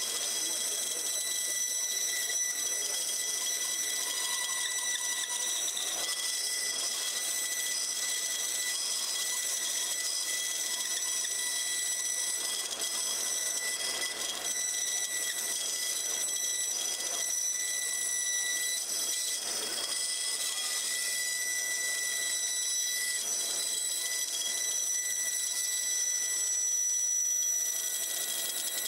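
Bandsaw running and cutting through a thick laminated wood block: a steady high-pitched whine with several even overtones over the hiss of the cut, a little louder near the end.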